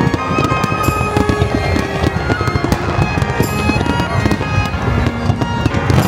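Music over a dense fireworks barrage, with rapid popping and crackling from many bursting shells beneath the held notes.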